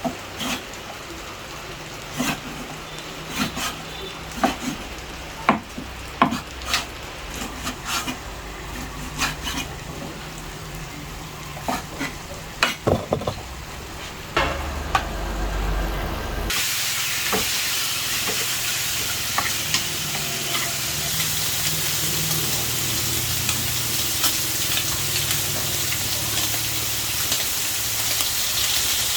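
Scattered sharp clicks and knocks of utensils or cookware for about the first half. Then, suddenly, a steady sizzle of food frying in a pan.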